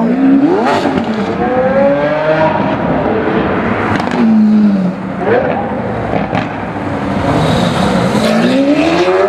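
Lamborghini Aventador S Roadster's V12 revving hard as it pulls away, its pitch climbing and dropping again through several pulls and gear changes, with a few sharp cracks in between.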